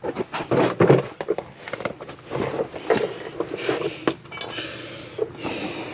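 Metal hand tools clinking and clattering as they are handled and set down, an irregular run of sharp clinks and knocks.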